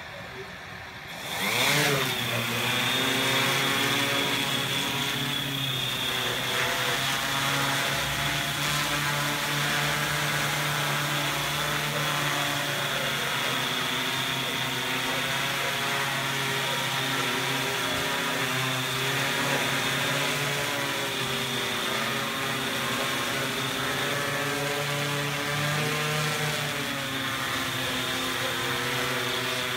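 Yuneec Typhoon Q500 quadcopter's electric motors and propellers spin up with a quick rising whine about a second and a half in. They then run steadily with a high whine on top while it flies and hovers, the pitch shifting slightly as it moves.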